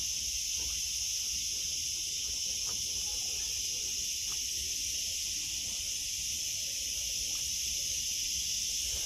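A steady high-pitched hiss that does not change, with a faint low rumble underneath.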